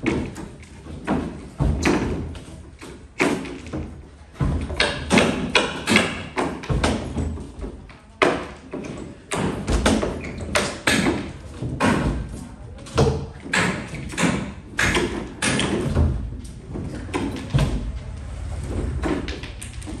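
Irregular thumps and knocks of construction work, sometimes two or three a second.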